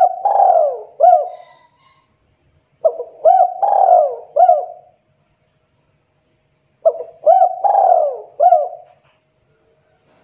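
Spotted dove (tekukur) cooing, used as a lure call: three phrases about four seconds apart, the first already under way at the start. Each phrase is a run of four or five coos that rise and fall in pitch.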